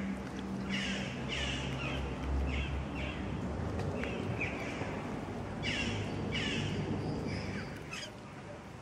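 Kittens mewing: short, high mews that fall in pitch, coming in quick runs with a short pause near the middle and stopping about eight seconds in.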